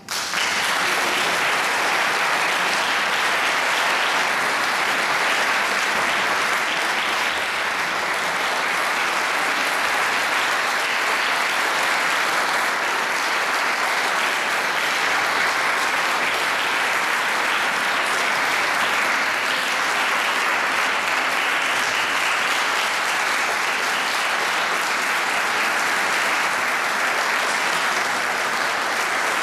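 A concert audience applauding steadily at the end of a piece.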